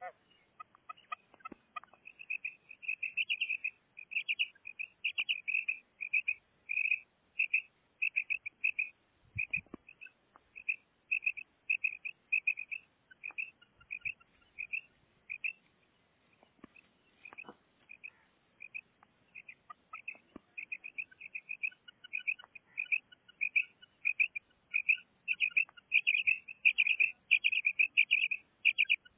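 Female common quail calling: a long run of short, high chirping notes, a few a second, louder near the start and again near the end.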